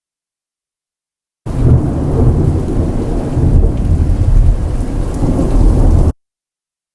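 A short sound-effect clip of loud, dense rumbling noise, heaviest in the low end and surging unevenly. It starts abruptly about a second and a half in and is cut off sharply about four and a half seconds later.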